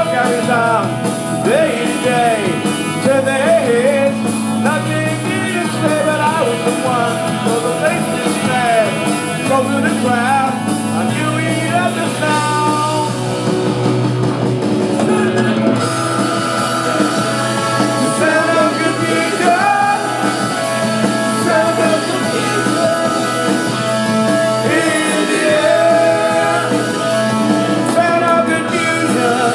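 Live rock band playing at full volume, with a gliding melody line over a steady bass and drums.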